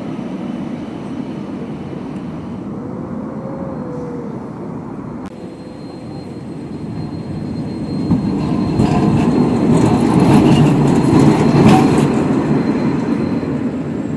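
Articulated low-floor tram passing close by, its wheels running on the street rails. The sound builds from about six seconds in and is loudest from about eight to twelve seconds, with repeated clattering over the track joints, then eases off near the end over a steady background hum.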